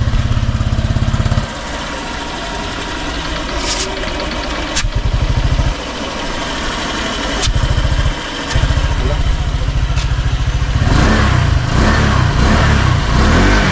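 Honda Click scooter's single-cylinder engine idling through a newly fitted Sun Racing Silent Killer power pipe, with a low, even exhaust beat that fades and returns several times and turns louder and rougher near the end. The engine is being run to check the new pipe's joints for exhaust leaks.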